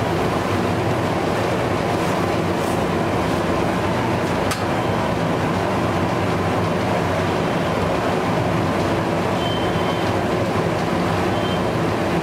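Steady loud mechanical rumble and hiss with a low hum running under it, like a machine or burner running without pause, and one sharp metallic click about four and a half seconds in.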